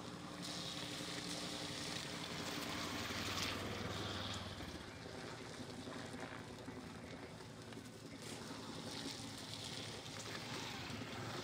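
Auto-rickshaw engine running as the three-wheeler drives past over a rough dirt road, loudest a few seconds in. Then a motor scooter's engine approaches and passes close by near the end.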